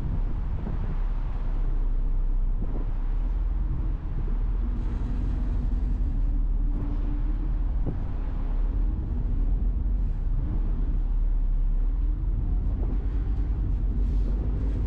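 An NYC Ferry boat underway: a steady low rumble of its engines and the water, with a faint hum over it.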